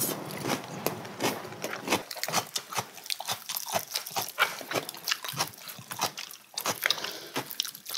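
People chewing roasted chicken and smacking their lips, biting meat off a piece held in the hands: a steady run of quick, irregular clicks and smacks.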